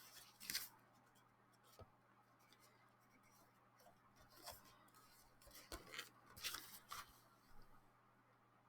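Faint paper handling as the pages of a desk calendar are turned: a few brief rustles and light taps scattered through, the busiest stretch a little past the middle.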